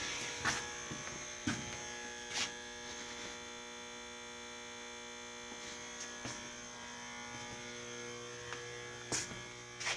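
Steady electrical hum with several steady tones, broken by a few soft knocks about half a second, a second and a half and two and a half seconds in, and once more near the end.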